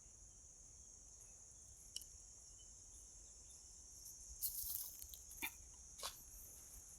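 Insects buzzing steadily in a high, even drone, with a few sharp clicks and a brief rustle a little past the middle.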